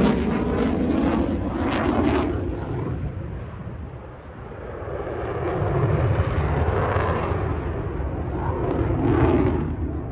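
Fighter jet noise from a display pass overhead. It fades over the first four seconds with a falling pitch, then builds again and is loudest near the end.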